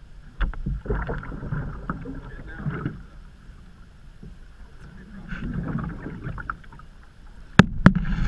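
Canoe paddle strokes: the blade dipping and pulling through the water, with splashing and dripping in uneven swells. Two sharp knocks come near the end.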